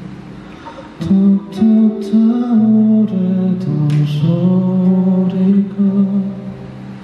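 Live acoustic music: acoustic guitar with a man's voice carrying the melody, and a few sharp percussion strikes. It is quieter for about the first second, then fuller.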